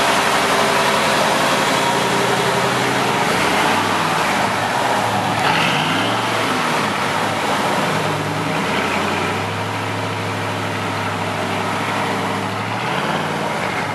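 Rebuilt 350 Chevy small-block V8 in a 1935 Studebaker Dictator coupe idling through its 2-inch aluminum exhaust. The throttle is blipped several times, so the revs rise and fall back to idle.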